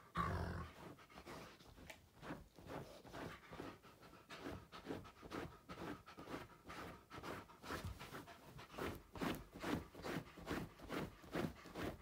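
Wolfdog panting in a steady rhythm, about two to three breaths a second, with one short louder sound right at the start.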